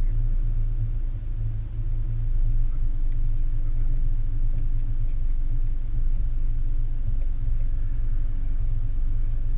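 Car engine idling while stopped: a steady low hum with a faint steady tone that drops slightly about two and a half seconds in, heard from inside the cabin and muffled by the GoPro's sealed waterproof case.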